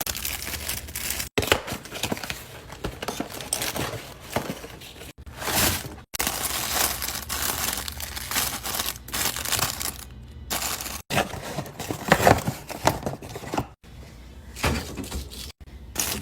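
Plastic food packaging crinkling and tearing as groceries are unpacked and handled for restocking, in short snippets that start and stop abruptly several times.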